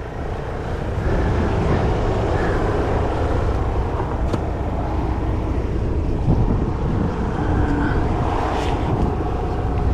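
A 4WD's engine running with a low, steady rumble, building a little about a second in.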